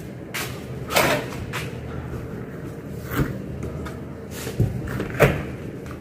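Handling knocks and bumps as someone moves around an air handling unit's cabinet: several short knocks, loudest about a second in and again near the end, over a steady low machinery hum.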